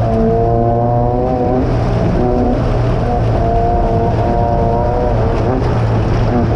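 Class 9 buggy's air-cooled Volkswagen engine running hard from on board, its pitch climbing and dropping several times over a steady noisy rush of wind and running gear.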